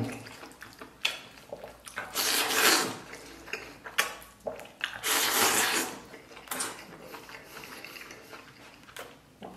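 Noodles slurped up with chopsticks from a stainless steel bowl: two long, hissing slurps, a couple of seconds and about five seconds in, with a few sharp clicks of the chopsticks against the bowl and chewing between.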